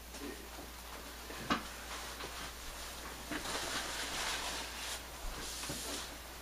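Paper napkin rustling softly as hands are wiped and the napkin is laid flat on a table, with a single light knock about a second and a half in.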